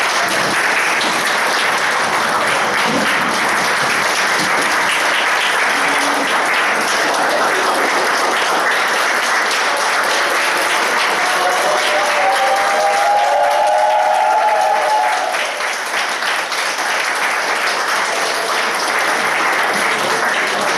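An audience applauding, many hands clapping steadily, a little quieter over the last few seconds.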